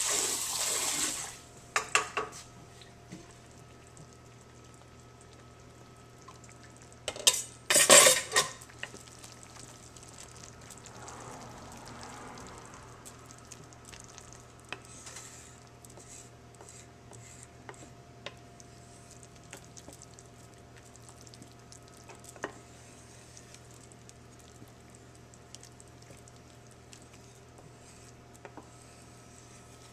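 Wooden spoon stirring soup in a slow cooker's crock, with light scattered clicks and knocks against the pot. A louder clatter of cookware comes about seven to eight seconds in, over a faint steady hum.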